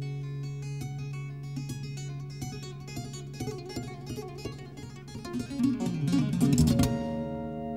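Acoustic guitar picking over a held low bass note, building to a louder quick run of notes about five and a half seconds in, then a final chord left ringing as the song closes.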